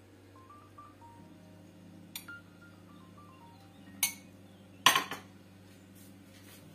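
A metal spoon clinking against ceramic dishware a few times, sharp knocks about two, four and five seconds in, the one near five seconds the loudest. Soft background music of simple stepped tones plays underneath.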